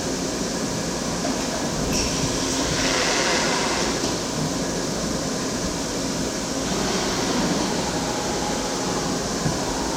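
CNC machine running with a steady mechanical noise. A brighter hiss comes in about two seconds in and drops away near seven seconds.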